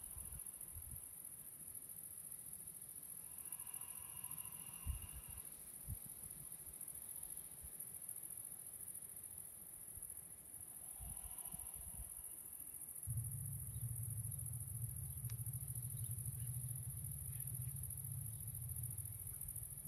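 Meadow insects chirring in a steady high-pitched drone, with a low rumble coming in about two-thirds of the way through.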